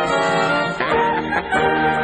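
Instrumental background music, a melody of held notes that change every half second or so.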